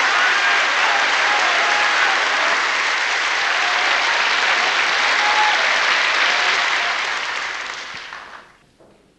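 Audience applauding at the end of a song, fading out about eight seconds in.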